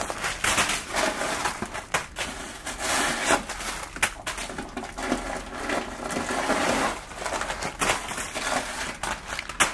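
Tissue-paper stuffing rustling and crinkling as hands open a leather tote bag and work the paper about inside it, with many irregular sharp crackles.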